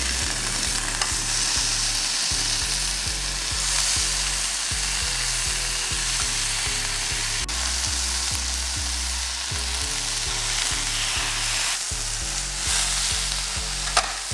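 Thin slices of beef brisket sizzling steadily as they fry in a hot nonstick pan, more raw slices being laid in as the first ones brown. Soft background music runs underneath.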